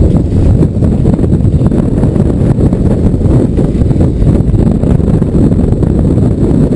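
Wind buffeting the microphone: a loud, rough, steady rumble that stays low in pitch and never lets up.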